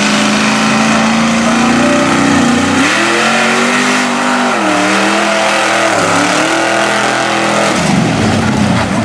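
Lifted Ford pickup mud truck on tractor tires, its engine revving hard under load as it launches into the mud pit. The engine pitch holds, climbs about three seconds in, dips twice, then turns into a rougher, noisier sound near the end as the tires throw mud.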